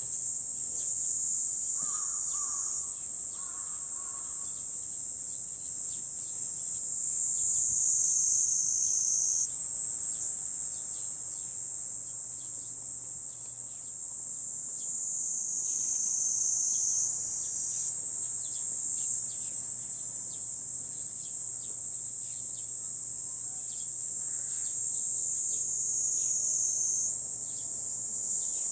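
Chorus of cicadas: a steady, high-pitched drone that dips and rises a little in pitch now and then. Two short, faint chirps come about two and four seconds in.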